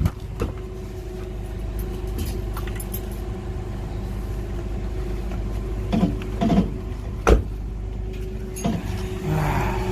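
Forklift engine idling steadily, with a few sharp knocks and clunks over it, the loudest about seven seconds in.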